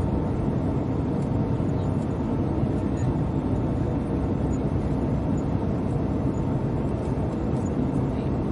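Steady, low rushing cabin noise of an airliner in cruise, heard inside the cabin, with a faint steady hum near the top of the sound.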